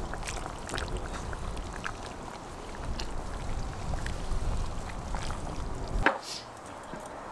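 Metal ladle scooping thick borscht from a cauldron and pouring it into an enamel bowl: wet sloshing and dripping with light clinks, over a low rumble. A sharp click about six seconds in, after which the rumble stops.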